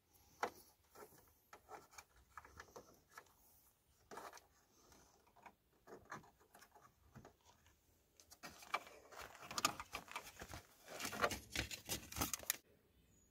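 Faint clicks, scrapes and rustles of hands working a wire and fuse tap into a plastic under-dash fuse panel and its trim. The handling grows busier in the last few seconds, then stops just before the end.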